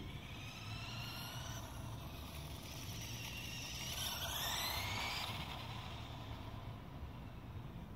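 Whine of a LEGO RC café-racer motorcycle's electric motors and gears as it drives on asphalt, gliding up and down in pitch as it speeds up and slows. It is loudest about four to five seconds in, as it comes close.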